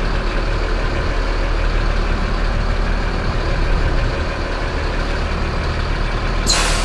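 Diesel engine of a Mercedes-Benz city bus running steadily, heard from the driver's seat while the bus moves slowly in traffic. Near the end comes a short hiss of compressed air from the bus's air system.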